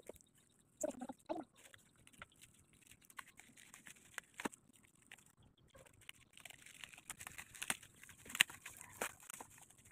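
Faint crinkling and rustling of plastic bubble-wrap packaging as it is cut open with scissors and handled, with scattered sharp clicks and snips that grow busier in the second half.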